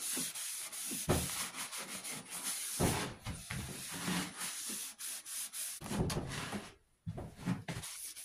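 Folded paper towel wiping Tru-Oil finish onto a red oak bow, a run of quick back-and-forth rubbing strokes over the wood, with a short break about seven seconds in.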